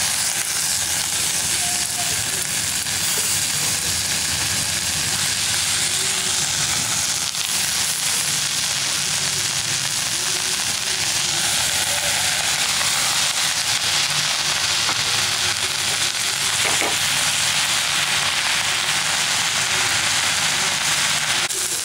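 Hot oil sizzling steadily in a pan under a heap of freshly added mint, coriander and curry leaves, still wet from washing, as they begin to wilt.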